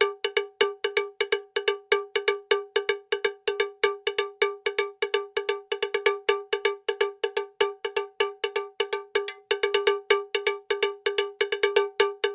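Rapid rhythmic pattern of sharp, pitched percussion strikes, all on the same ringing note, about four to five a second.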